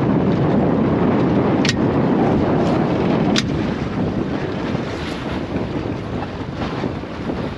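Wind buffeting the microphone on a small open boat, a steady low rumble, with two sharp clicks, one about one and a half seconds in and another a little under two seconds later.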